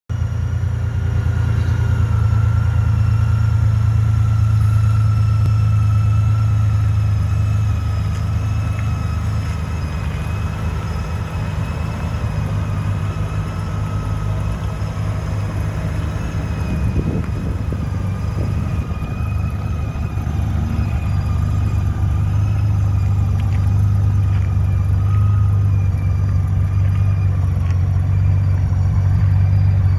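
Honda Gold Wing Valkyrie's flat-six engine idling steadily with a low, even rumble.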